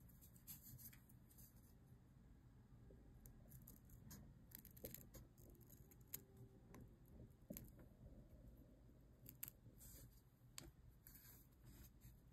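Faint snips of small craft scissors trimming the edge of a thin leather cutout: a string of short, separate clicks a second or so apart, more of them in the second half.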